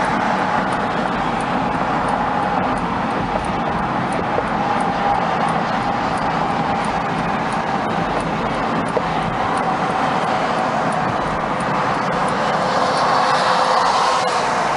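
Steady tyre, road and engine noise inside a car's cabin, driving at highway speed.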